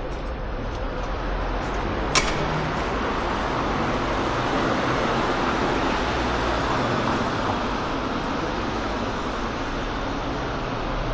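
City street traffic noise, swelling as a vehicle passes, with one sharp click about two seconds in.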